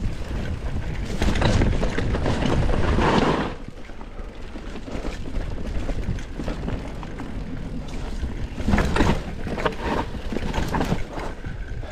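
Mountain bike riding down a dirt trail: tyre noise and wind on the rider's microphone, louder for a couple of seconds early on and with short surges near the end.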